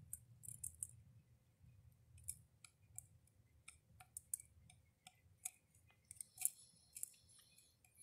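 Faint, irregular clicks, a few a second, from a pileated woodpecker's bill pecking at seed on the ground, over a low steady hum.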